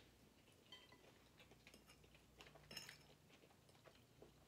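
Faint, scattered clinks and scrapes of a metal knife and fork against plates as food is cut, otherwise near silence.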